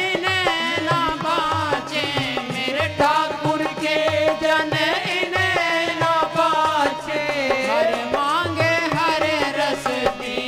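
Devotional bhajan music: a melody that bends and glides in pitch over a steady hand-drum beat.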